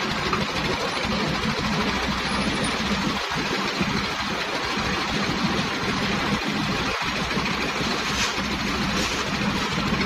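Engine powering a concrete mixer and its skip hoist, running steadily.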